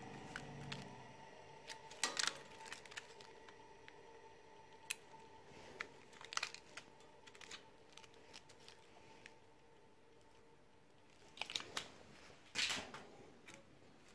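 Faint clicks, rattles and plastic crinkling as gloved hands handle the sawn-apart plastic and metal casing of a cassette Walkman and its loose tape. There are louder clusters about two seconds in and again near the end.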